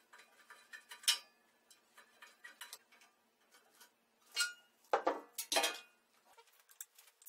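Hand tools and small metal parts clinking and ticking as they are handled, with a sharp clink about a second in and a few louder clatters and knocks between four and six seconds.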